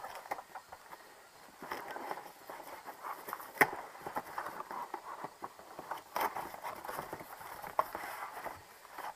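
Brown packing paper and cardboard rustling and crinkling as packaging is pulled out of a box, with a few sharper snaps and knocks of cardboard.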